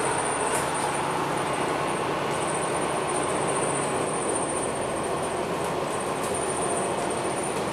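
Cabin noise inside a MAN NL323F A22 city bus running slowly: a steady mix of diesel engine drone and road and body noise, with a thin high whine throughout.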